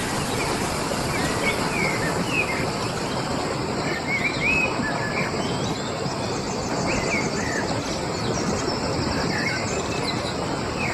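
Outdoor nature ambience: a steady rushing background noise with birds chirping in short calls throughout, and an insect's fast ticking trill about two-thirds of the way in.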